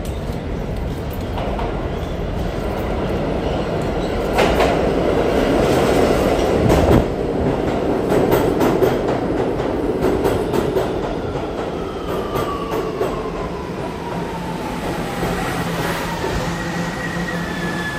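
R211A subway train pulling into the station alongside the platform: its wheels clatter over rail joints as the cars pass, and a whine falls steadily in pitch as it brakes. A high, steady brake squeal starts near the end.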